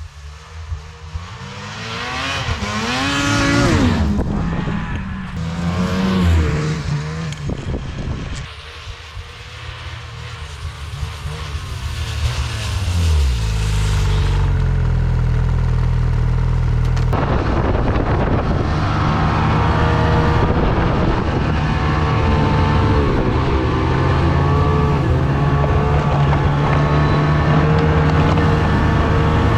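Ski-Doo MXZ 800R E-TEC two-stroke snowmobile engine under way, its pitch rising and falling with the throttle over the first half. From a little past halfway it holds steady at speed.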